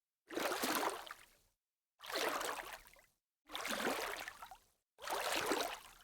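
A short, noisy sound effect played four times, each about a second long, starting sharply and fading out, with dead silence between repeats.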